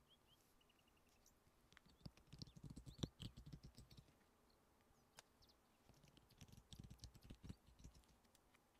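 Tarot cards being shuffled in the hands: faint riffling and clicking of card edges in two bursts, about two seconds in and again about six seconds in.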